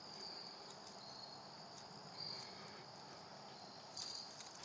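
Faint, steady high-pitched insect trilling, with louder chirps recurring about once a second.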